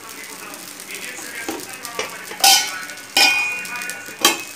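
Appam batter cooking in a nonstick appam pan on a gas burner, with a steady faint sizzle. Over it come three sharp metallic clanks of cookware, about two and a half, three and four seconds in, the middle one ringing briefly.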